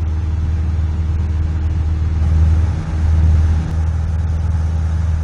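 Cessna 172's piston engine and propeller droning steadily in the cabin in flight, a loud low hum that swells briefly a little past the middle.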